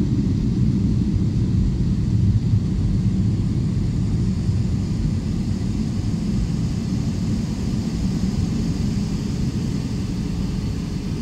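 Steady low rumble of an airliner's engines and cabin air heard from a passenger seat while the plane taxis before take-off, with a faint hiss above it.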